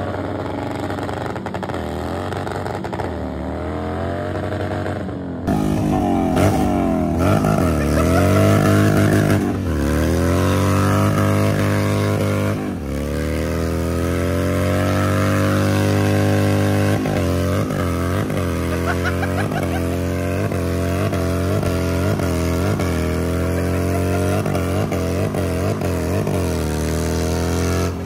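Cruiser motorcycle engine revving hard during a rear-tyre burnout, its pitch climbing and falling in long sweeps. The sound changes abruptly about five seconds in. Later the revs rise and drop in quick, repeated blips, more than one a second.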